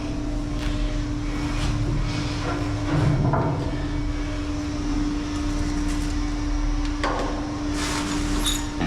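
A steady mechanical hum on one constant low note over a low rumble, with a few knocks and clanks about three seconds in and again near the end.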